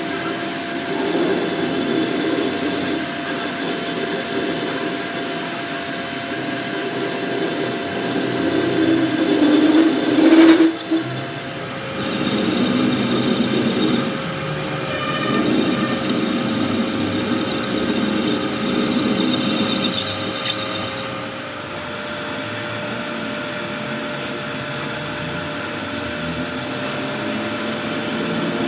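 Steady machinery noise in a workshop, rising to a louder surge about ten seconds in that cuts off sharply, then running on with uneven swells.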